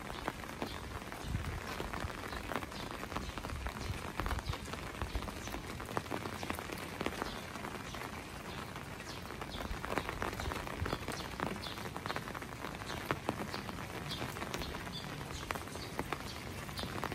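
Steady rain falling, an even hiss dotted with many separate drops ticking.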